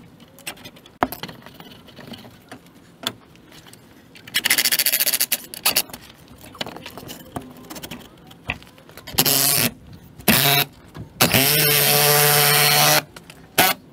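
Cordless power drill driving a long screw through a wooden gate post, running in several bursts: about a second's run some four seconds in, two short runs around nine and ten seconds, and a steady whirr of about two seconds near the end. Light knocks of wood and tool handling in between.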